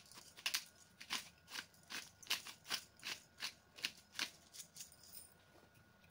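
Hand pepper mill grinding peppercorns in quick, regular twists, about two and a half gritty grinding strokes a second, stopping about four and a half seconds in.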